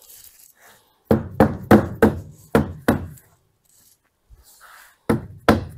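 Sharp knocks on a wooden cabinet panel, driving it into the glued grooves of the cabinet frame: about six blows in two seconds, a pause, then another quick run of knocks starting near the end.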